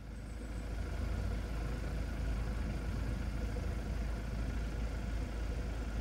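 Wind buffeting the microphone: a steady deep rumble with a hiss over it. It swells during the first second, then holds.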